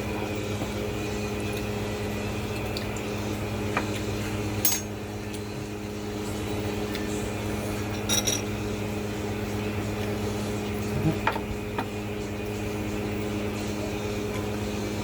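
A steady low electrical hum, with a few sharp clinks and taps of dishes and utensils during a meal, about five in all, the loudest near the middle.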